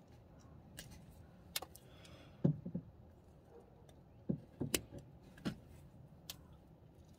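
Wire strippers clicking and snapping as winch contactor leads are cut and their insulation stripped: a handful of short, sharp clicks at irregular intervals, the loudest about two and a half seconds in.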